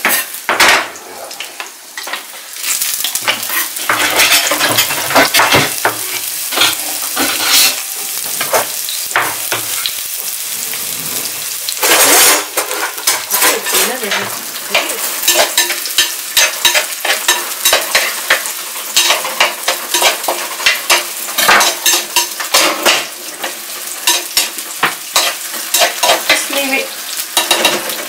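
Chopped onion and garlic frying in hot oil in a clay pot, sizzling loudly, the sizzle swelling about three seconds in. Through it, a metal spoon scrapes and knocks against the clay as the onions are stirred.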